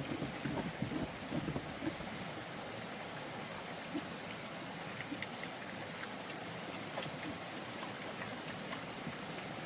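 A few low pig grunts in the first two seconds, then a steady rush of running water.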